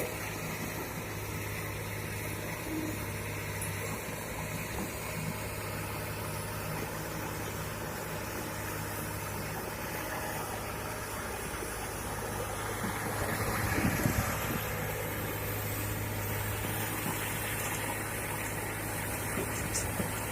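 Heavy diesel engine of an excavator or dump truck running steadily at a low, even hum, swelling briefly about two-thirds of the way through.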